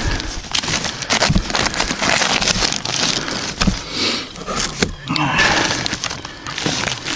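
Cardboard fireworks cakes being handled and shifted about: close rustling, scraping and clicking, with a few dull knocks.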